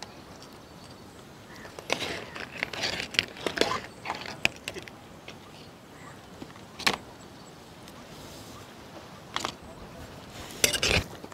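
Scattered light clinks and clatter of crab curry being served: crab pieces and a utensil knocking against a black iron cooking pan. A cluster of clinks comes a couple of seconds in, single sharp clicks follow, and a louder clatter comes near the end.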